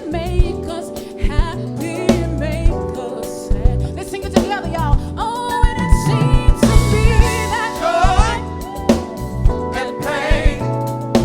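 Live soul band playing: a singer's voice with vibrato over a drum kit and a steady beat.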